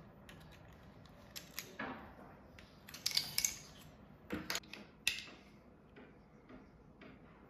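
Scattered clicks, crackles and short scrapes of a thin plastic bottle being handled, loudest in a cluster a little before the middle.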